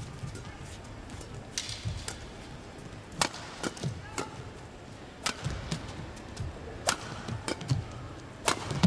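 Badminton rally: sharp cracks of racket strings hitting the shuttlecock about once a second, with soft thumps of players' footfalls on the court.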